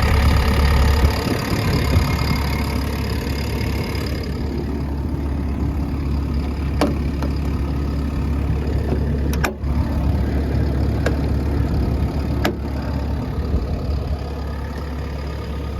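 JCB JS160 excavator's diesel engine idling steadily, sounding healthy, with a few short sharp clicks heard over it in the second half.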